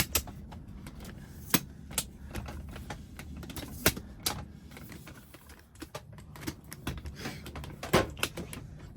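Keys and a lock being handled: a scattered series of sharp metallic clicks and small rattles, a few much louder than the rest, over a low steady hum.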